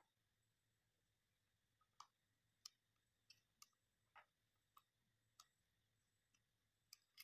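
Faint, irregular clicks, about ten of them, from a small screwdriver turning a screw into a soldering iron's handle.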